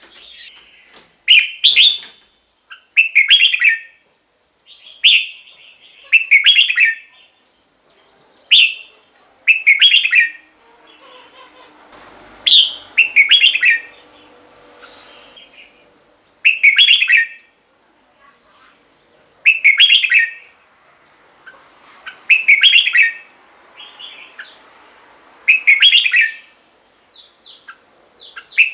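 Red-whiskered bulbul singing: short, loud, whistled phrases repeated about every two to three seconds, with softer chatter between them.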